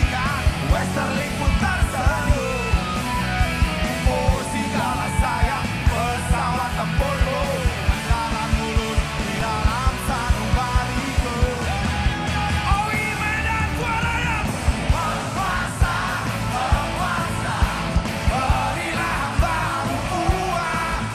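Live rock band playing at full volume, drums keeping a steady beat under guitars, with a singer and shouting crowd voices over it.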